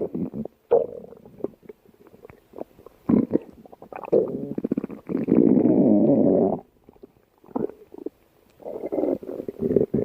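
Human stomach growling: a run of short, irregular gurgles and clicks, then a longer, louder rumble lasting a couple of seconds around the middle, and more bubbling gurgles near the end.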